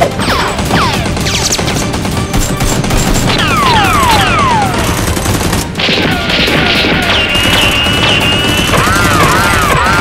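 Dubbed-in battle sound effects: a steady din of rapid gunfire with repeated falling whistles. About halfway through, a held high tone comes in, and wavering rising-and-falling tones follow near the end.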